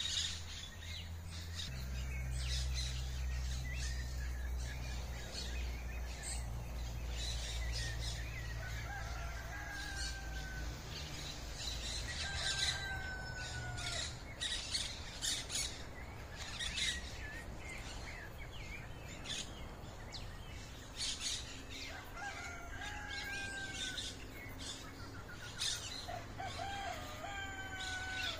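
Several birds chirping and calling in the trees: many quick high chirps, with a few longer whistled notes that fall slightly in pitch. A low rumble runs underneath for about the first ten seconds.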